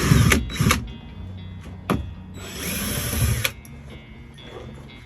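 Power drill driving out screws in short runs: two quick bursts at the start and a longer run of about a second near the three-second mark, with a sharp click between them.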